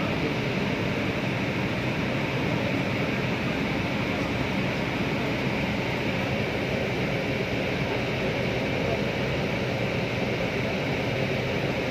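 Steady, even rushing noise from inside a moving airport apron bus: its engine and running noise, unchanging in level, with no separate knocks or calls.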